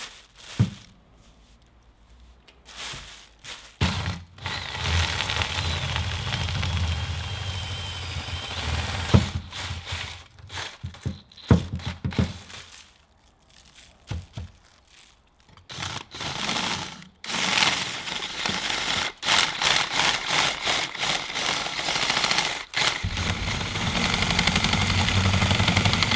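Power drill running in bursts as an extended Forstner bit bores through the corroded battery remains packed inside an old Maglite's aluminium barrel, with short pauses and a few knocks between the runs.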